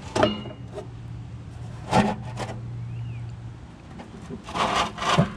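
A quarter-inch nylon liner knocking and scraping against the metal fan housing of a Billy Goat debris loader as it is pushed and worked into place: a few sharp knocks and scrapes, the loudest about two seconds in and near the end, over a low steady hum.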